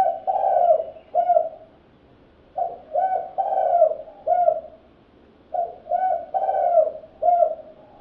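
Spotted dove (terkukur) cooing: phrases repeated about every three seconds, each two short coos, a longer drawn-out coo and a short final coo.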